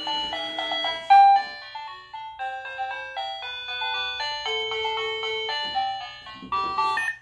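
Electronic tune from a toy ATM piggy bank's small speaker: a melody of short, steady electronic notes, the song it plays when a banknote is fed in. The melody stops near the end.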